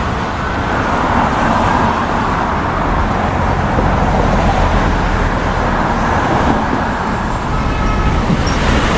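City street traffic: a steady wash of passing cars and other road vehicles.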